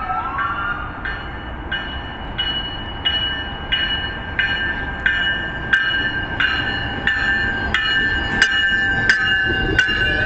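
Commuter rail locomotive's bell ringing steadily, about three strikes every two seconds, over the rumble of the train at the platform. A rising whine fades out in the first second.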